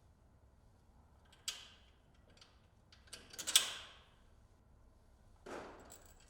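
Metal clicks and clinks from handling the A-arm bolts and nuts as the fasteners are fitted through the front lower A-arm mounts. One click comes about a second and a half in, then a quick run of clicks midway, the loudest, and a softer scrape near the end.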